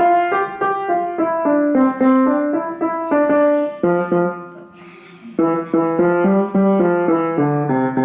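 Piano played by hand: a simple tune of separate notes, about three a second, breaking off for about a second midway before the playing resumes with lower bass notes joining in.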